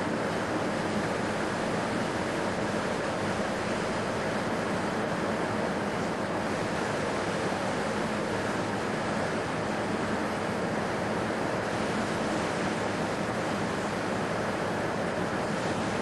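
A steady, even hiss with no distinct events, unchanging throughout.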